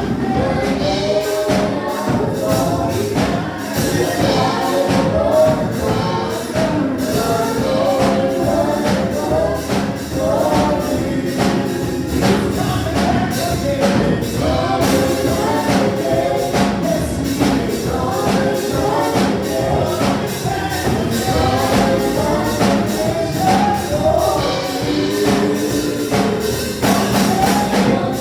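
Gospel music: several voices singing over a steady percussion beat.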